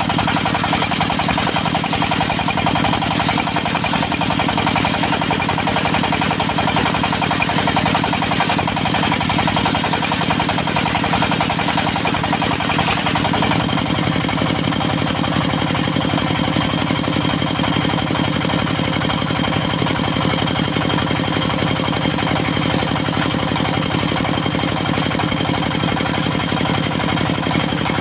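Diesel engine of a portable circular sawmill running steadily, with a fast even firing rhythm; its tone shifts slightly about halfway through.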